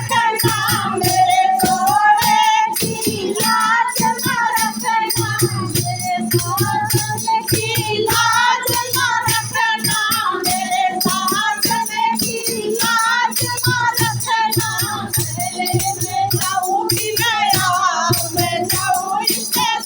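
A Hindi devotional bhajan: singing of a long, wavering melody over a steady rhythm of jingling, rattle-like percussion and a low drum.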